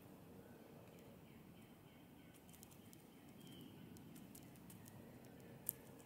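Pileated woodpecker pecking at suet in a wire suet cage: faint scattered ticks, with one sharper click near the end, over quiet distant bird calls.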